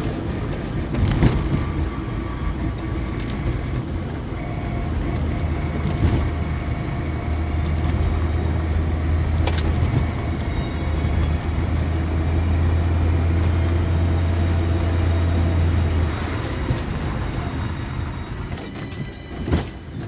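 Car driving on a muddy dirt road, heard from inside the cabin: a steady engine and tyre drone. The low rumble grows stronger about five seconds in and eases off a few seconds before the end. A few short knocks break through it.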